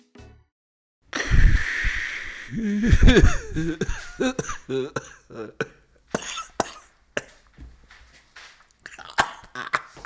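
A man coughing hard after drawing on a glass hand pipe: a loud harsh cough about a second in, another heavy stretch around three seconds, then a run of shorter coughs.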